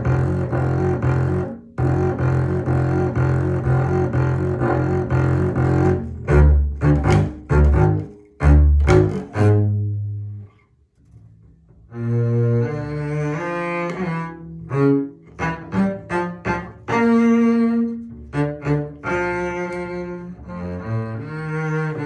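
Solo double bass played with the bow: a run of fast repeated notes, then several short accented notes and a held note. After a pause of about two seconds near the middle, a new, slower phrase of held and shorter notes begins.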